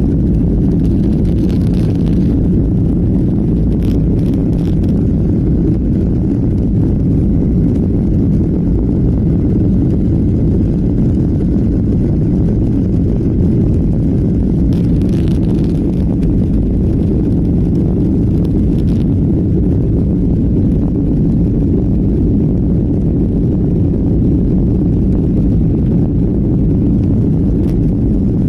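Airliner cabin noise in flight: a steady, loud, low rumble of the engines and airflow with no change in level.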